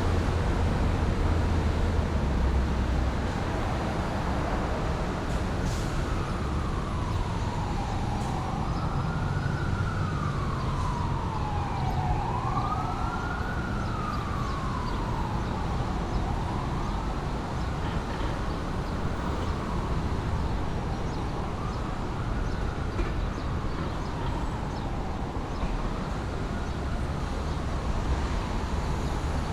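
A siren wailing in slow rises and falls, about one cycle every four seconds, over a steady rumble of city traffic. It comes in a few seconds in, is loudest near the middle and fades toward the end, like an emergency vehicle passing by.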